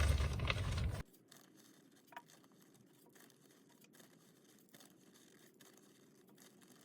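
Near silence. Faint outdoor background noise stops suddenly about a second in, and after that there is one faint click.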